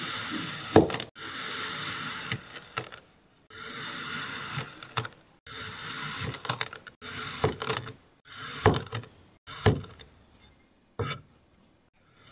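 A knife slicing again and again through a block of kinetic sand: each cut is a gritty crunch lasting about a second, several ending in a sharp tap of the blade on the table beneath.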